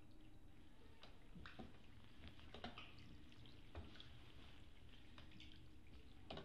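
Faint drips and small splashes of water from a rowing oar working the canal, a few separate plips, the clearest about two and a half seconds in, near four seconds and at the end.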